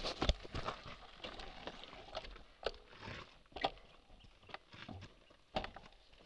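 Irregular footsteps of riding boots scuffing and crunching on a gravelly dirt track with dry leaves, a few short knocks and scrapes about once a second.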